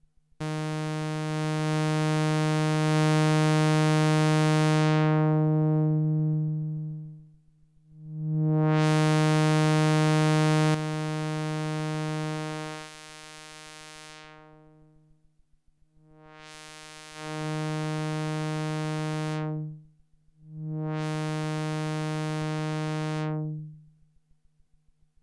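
Korg ARP Odyssey analogue synthesizer sounding one low note four times, each held for several seconds with a bright, buzzy tone whose upper overtones fade as the note sustains. The first two notes are long and the last two shorter. The sound is dry, taken directly from the synth's headphone output.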